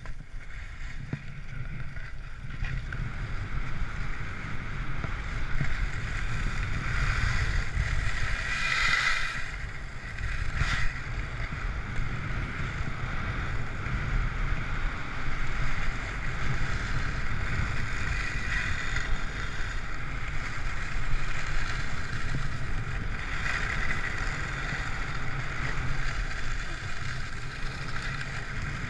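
Skis sliding and scraping over hard, icy snow, a steady hiss that swells and eases several times during the run, with wind rumbling on the microphone underneath.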